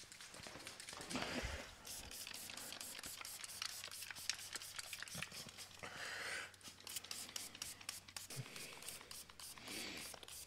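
Faint rubbing and handling noises: a cloth wiped over the car's painted body panel, and adhesive scanning target dots handled and peeled from their sheet, with many small, quick ticks.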